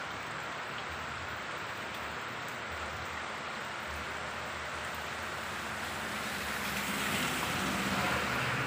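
Steady rain falling on plants and wet soil, an even hiss. Near the end the sound grows louder and a low hum comes in under it.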